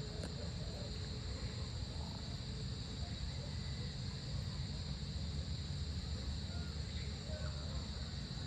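Steady dusk chorus of insects, a continuous high shrill buzz, over a low steady rumble, with a few faint short chirps scattered through it.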